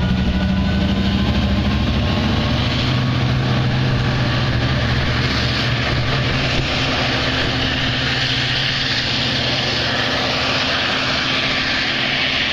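Diesel engines of LIRR DE30AC locomotives, EMD 12-cylinder two-strokes, running under power as the train pulls away, a steady low drone under a rushing noise that grows in the second half.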